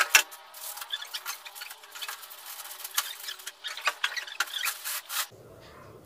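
Cardboard carton being slid down over a plastic-wrapped air-conditioner outdoor unit: cardboard scraping and rustling against the plastic wrap and foam packing, with scattered sharp knocks, the loudest just after the start. It stops about five seconds in.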